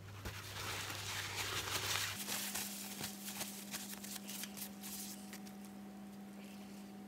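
Handling noise: a soft hissing rustle for about two seconds, then a run of small clicks and crackles, over a low steady hum that shifts up in pitch about two seconds in.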